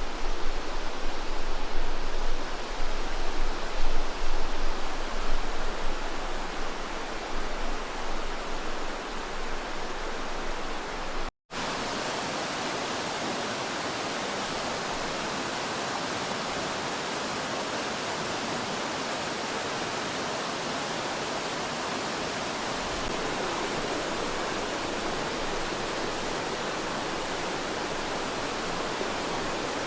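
Cascade River rushing as a steady wash of water noise. It is louder and uneven, with a low rumble, for about the first eleven seconds, breaks off briefly, then runs on even and steady.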